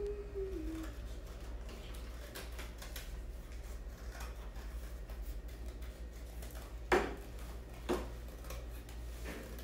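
Scissors cutting through thin cardboard: faint scattered snips, with two sharper snips about seven and eight seconds in.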